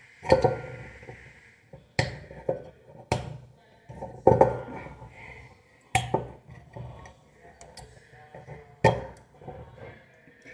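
Metal tools clinking and knocking against the neck of a glass wine bottle as a screw is worked into the cork to open it without a corkscrew: about six sharp strikes spread through, with quieter scraping between.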